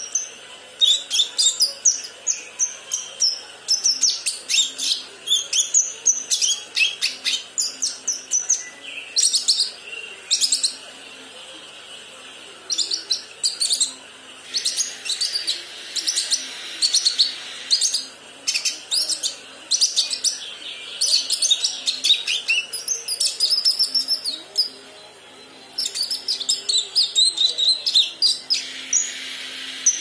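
Young kinoi (a leafbird) practising its song: a rambling run of rapid, varied chirps and short whistled notes, the unfinished subsong of a juvenile still learning to sing. It pauses briefly about a third of the way in and again about three-quarters through.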